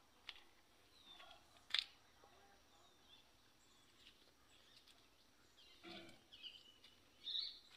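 Faint, scattered bird chirps over near silence, with one sharp click about two seconds in.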